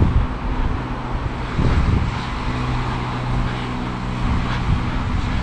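A steady low engine hum that sets in about a second and a half in and fades near the end, over wind noise on the microphone of a moving bicycle camera.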